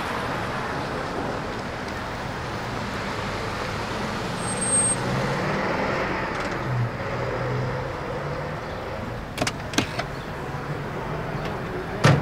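Street traffic: cars drive past with a steady rush of engines and tyres that swells as each one goes by. A few sharp clicks come near the end, and then a louder knock.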